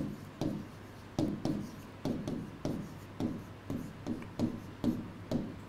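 A stylus writing on a tablet screen: a quick series of light taps and short scrapes, about two a second, as letters are written by hand.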